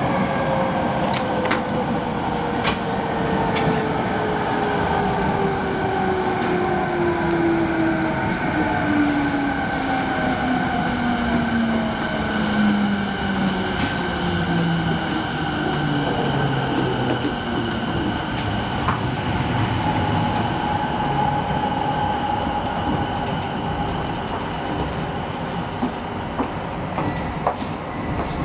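Refurbished E217-series electric train heard from inside a motor car, its traction motor and inverter whine falling steadily in pitch as the train slows under braking, over rumbling wheel and running noise with scattered clicks near the end.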